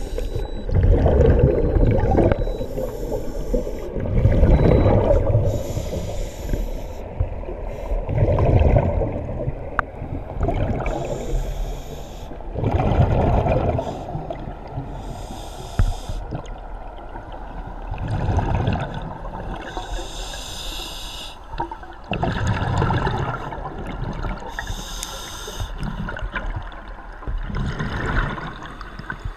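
Scuba diver breathing through a regulator underwater: a hiss on each inhale, then a rumble of exhaled bubbles, in slow, regular breaths about every four seconds.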